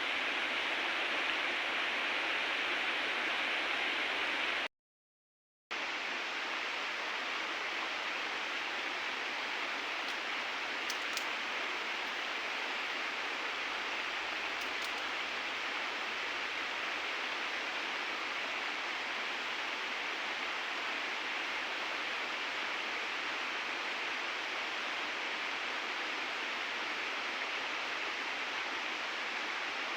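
Steady rush of flowing river water, an even hiss that stays unchanged. It cuts out completely for about a second roughly five seconds in, then resumes.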